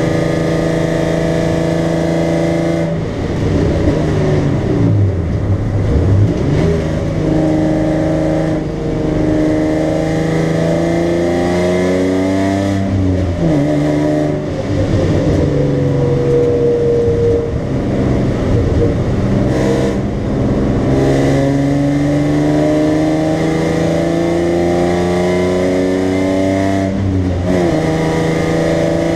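BMW 325i straight-six engine heard from inside the cabin at full track pace. Its pitch climbs steadily under acceleration, drops sharply at each gear change, and falls and rises quickly about four to six seconds in.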